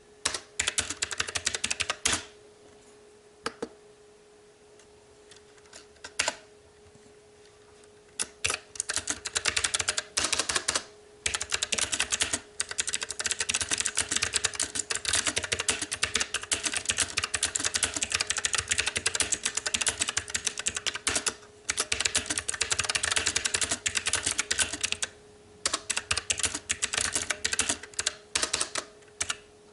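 Fast typing on a mechanical keyboard with blue clicky switches, a rapid run of sharp key clicks. About two seconds in it pauses for several seconds with only a few single key presses, then fast continuous typing resumes with brief breaks. A faint steady hum runs underneath.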